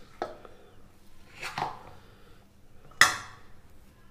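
Steel spoon scraping and clinking against a stainless steel bowl while scooping out soft cutlet mixture. A small click comes near the start and a scrape about a second and a half in. About three seconds in there is a sharp metallic clink, the loudest sound.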